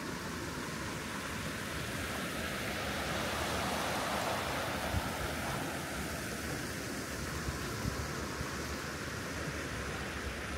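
Shallow creek water running over rocks, a steady rushing that swells about halfway through, with a few faint knocks in the second half.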